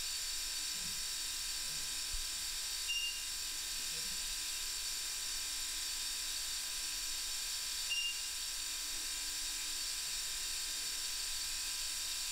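Steady high hiss with a few faint fixed high tones, broken twice by a short high beep about five seconds apart.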